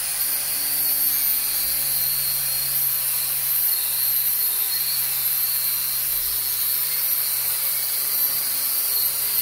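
Electric angle grinder with a wire wheel running steadily against a bicycle frame, stripping rusty paint to bare metal, with a high-pitched whine and hiss.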